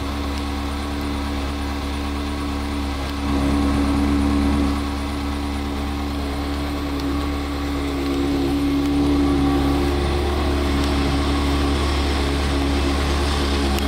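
Ferrari 360 Modena's 3.6-litre V8 idling steadily, a little louder for a second or so a few seconds in.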